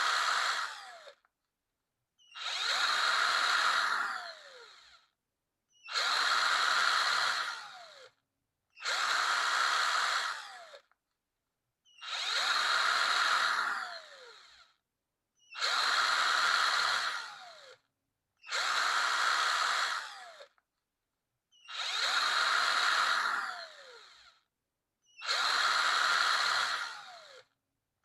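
Power drill run in short repeated bursts, about one every three seconds, each a high whir that winds down in pitch as it stops before a brief silence.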